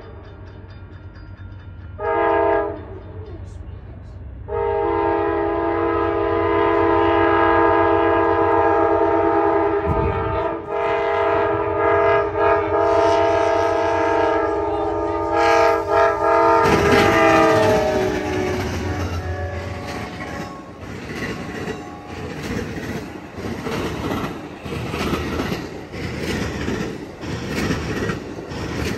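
Amtrak GE Genesis diesel locomotive sounding its air horn: a short blast, then one long blast of about twelve seconds that drops in pitch as the locomotive passes. Then the rumble of the passing passenger cars, with a steady rhythmic clickety-clack of wheels over the rail joints.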